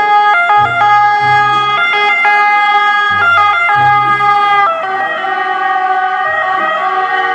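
Toy ambulance's electronic siren sounding loudly, a buzzy tone that jumps back and forth between a few pitches.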